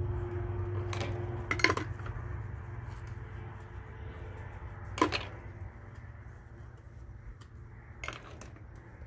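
Dishes being washed by hand in plastic basins: a few separate clinks and clatters of dishes, the loudest about a second and a half in and again at about five seconds, over a steady low hum.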